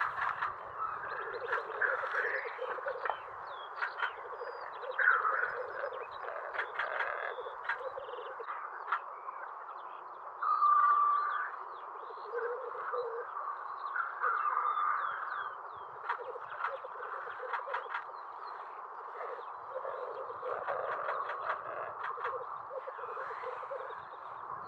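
A rackelhahn, the hybrid of western capercaillie and black grouse, giving its display call: odd, harsh croaking and rattling phrases repeated over and over, the loudest just under halfway through.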